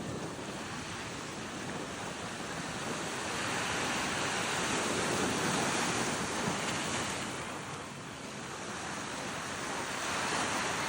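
Caribbean sea waves washing onto a beach: a continuous rush of surf that swells to its loudest around the middle, eases off, then builds again near the end.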